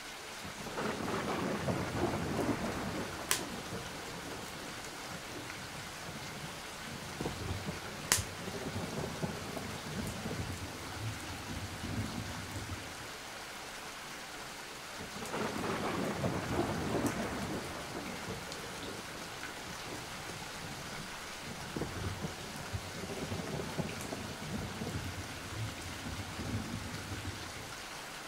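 Steady rain with two long rolls of thunder, one starting about a second in and another around fifteen seconds in, and a few sharp clicks scattered through.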